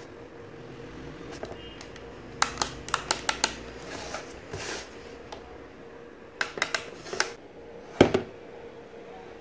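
Hard plastic fan base being handled and shifted on a wooden tabletop: a quick run of sharp clicks and taps, a second shorter run, then one louder knock near the end.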